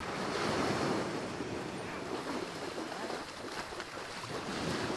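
Steady outdoor wash of wind and surf noise, with faint voices from people nearby.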